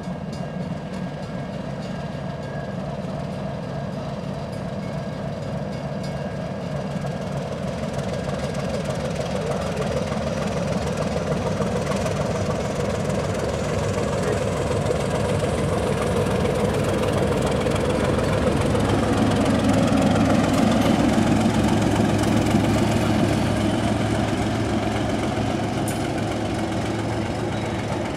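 Baldwin S12 switcher locomotive's diesel engine running at a steady low throttle as the locomotive rolls slowly past. The engine sound grows louder about two-thirds through as the locomotive passes close, then eases slightly as the covered hopper car follows.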